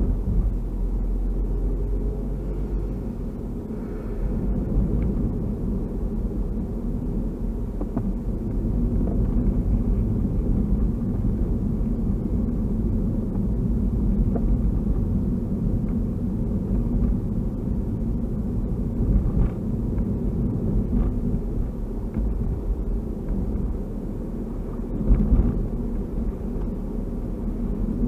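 Steady low rumble of a car driving on a town road, engine and tyre noise heard from inside the cabin through the dash cam's built-in microphone.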